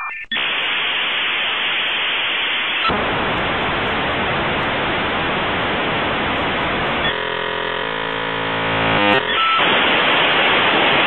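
Dial-up modem handshake over a phone line: a loud hiss of static, then about seven seconds in a two-second stretch of many steady tones sounding together, then the hiss again.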